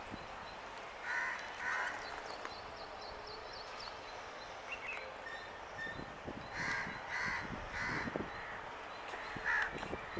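Crows cawing in short calls, two about a second apart, then a run of several later on, with quick high chirps from another small bird in between. Under them is a faint steady background rumble.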